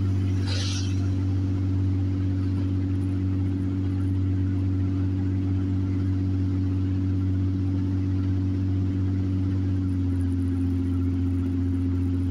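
Steady low drone of a car's engine and tyres heard from inside the cabin while driving on a wet road. A brief hiss about half a second in as an oncoming car passes, and the engine hum shifts slightly in pitch about ten seconds in.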